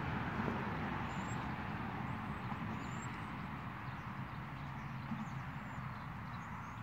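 Steady outdoor background rumble and hiss, with a few faint, short, high bird chirps scattered through.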